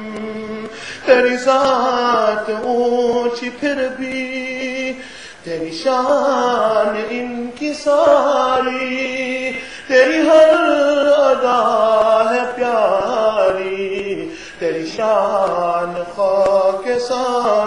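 A man singing an Urdu naat, a devotional song praising the Prophet, in long melodic phrases with brief pauses between them.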